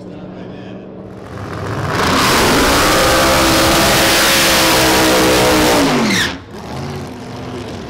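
Top Alcohol Funny Car's supercharged alcohol-burning V8 during a burnout. The engine revs up about a second in and holds at high revs, very loud, for about four seconds. Near the end the throttle is lifted and the revs fall away sharply.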